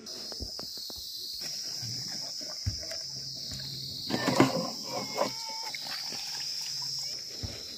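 Steady high-pitched insect drone over a low hum, with a cluster of sharp knocks about four to five seconds in as a stick is worked down into a plastic jug.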